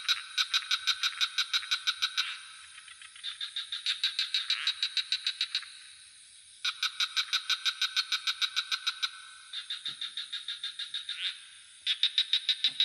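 Frogs calling in pulsed trains of about five or six notes a second, each train lasting two to three seconds, two callers taking turns, over a steady high-pitched drone of crickets.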